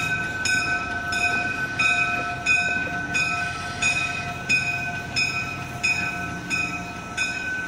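A bell rings steadily, about three strikes every two seconds, over the low running of a Budd RDC rail diesel car as it moves past.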